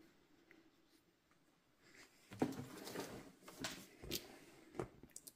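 Cardboard carton of a boxed air fryer being handled and turned over by hand: a run of knocks, scrapes and rubs on the cardboard starting about two seconds in, the first knock the loudest.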